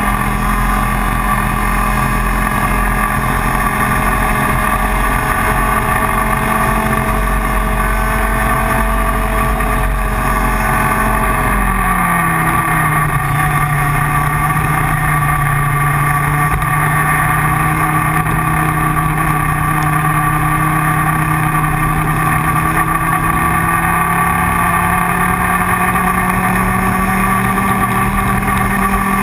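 IAME Leopard 125 cc two-stroke kart engine running hard at high revs. Its revs drop sharply about twelve seconds in, then climb slowly back up through the rest of the stretch.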